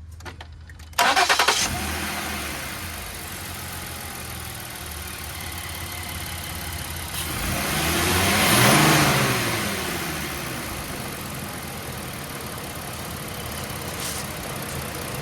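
Ford 3.7 L V6 engine cranked and catching about a second in, then running, its speed rising and falling once midway before settling to idle. It runs without a belt squeal on a freshly fitted serpentine belt.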